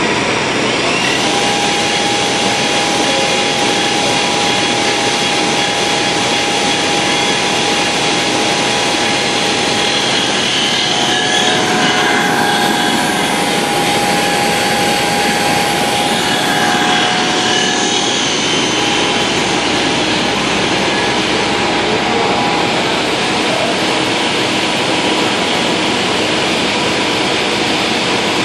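LIBA tricot warp knitting machine running at production speed: a loud, steady mechanical din. A thin steady whine sits on top of it until a little past the middle.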